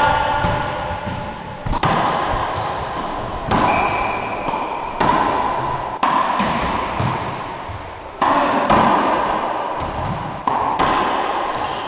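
Racquetball rally: the hollow rubber ball smacking off racquets and the court walls in sharp cracks about every one and a half seconds, each ringing out in the enclosed court's echo.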